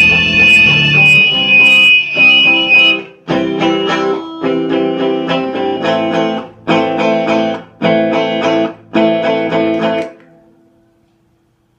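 Guitar music without vocals: a held passage, then strummed chords in short phrases with brief stops between them. The playing ends about ten seconds in and the last chord rings out to silence.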